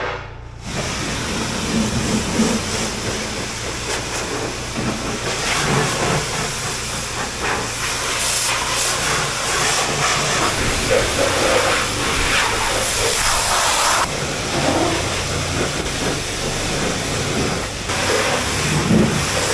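Pressure washer spraying, a steady loud hiss whose brightness shifts as the jet moves, brightest for several seconds in the middle, over a low steady hum.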